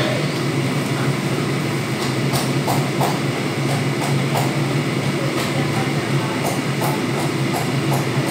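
Stovetop cooking: a steady low rumble with scattered light crackles and a few brief scrapes of cookware.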